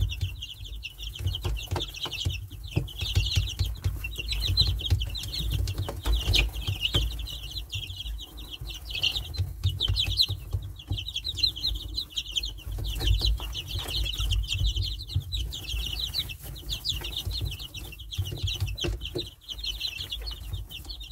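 A brood of chicks peeping continuously, many short, high cheeps overlapping without a break.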